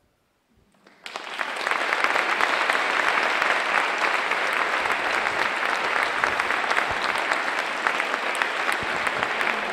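Audience applauding: many hands clapping together, starting suddenly about a second in and keeping up steadily.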